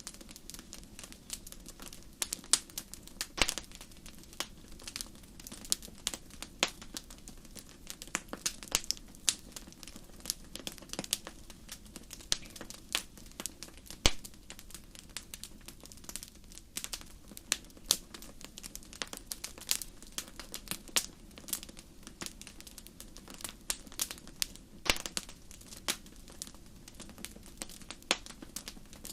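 Fire in a fireplace crackling: irregular sharp pops and snaps, a few a second, over a low steady rush of the flames.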